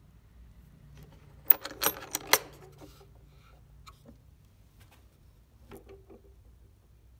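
Metal hasp latch on a riveted metal equipment case being unfastened and the lid lifted: four sharp metallic clacks in quick succession about a second and a half in, then a few faint knocks as the lid opens.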